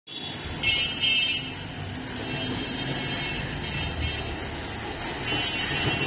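Budgerigars chirping: two short spells of high, warbling calls, about half a second in and again near the end, over a steady low rumble.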